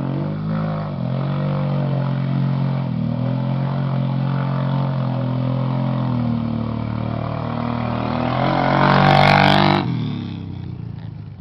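ATV engine running hard under load as the four-wheeler churns through deep mud, growing louder about eight seconds in, then dropping away suddenly near the end.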